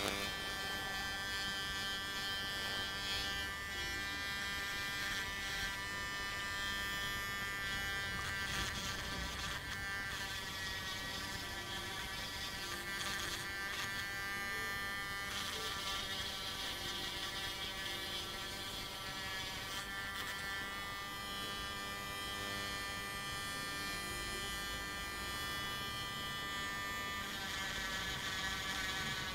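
Small handheld rotary tool running at high speed with a grinding bit, trimming a plastic SIM card frame: a steady high buzz whose pitch sags briefly a few times as the bit bears on the plastic.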